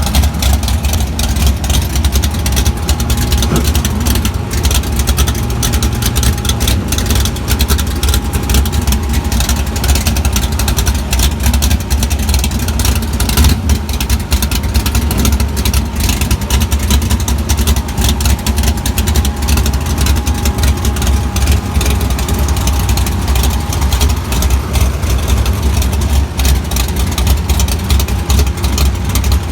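Iron-headed W2 340 small-block Mopar V8 of a 1966 Dodge Dart drag car idling with a choppy, pulsing beat.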